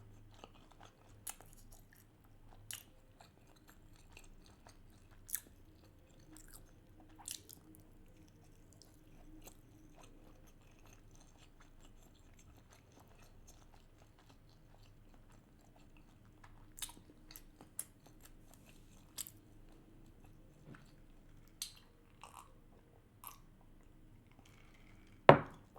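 Quiet chewing and wet mouth sounds of a person eating salmon sushi, with scattered soft clicks and smacks and a sharper click near the end.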